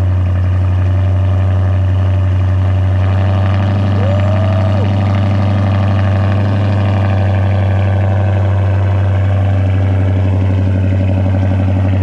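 Chrysler 300's Hemi V8 idling steadily through its exhaust just after a cold start, a deep even hum with no revving.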